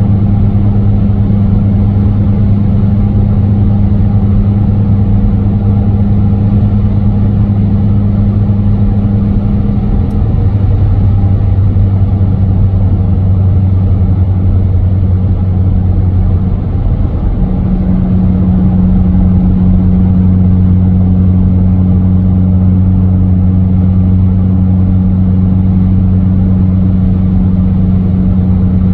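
Car cabin at highway speed: a steady drone of engine and tyre noise with a strong low hum that shifts slightly in pitch about ten seconds in and again about seventeen seconds in.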